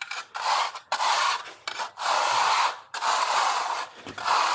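A hand-held abrasive block rubbed back and forth over a concrete floor, about five long strokes. It is grinding down the surface's imperfections to level it so the waterproofing mesh will stick to it.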